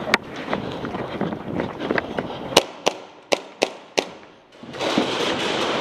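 Airsoft guns firing single sharp shots: one just after the start, then five in quick succession about a third of a second apart. A dense shuffling noise of movement follows near the end.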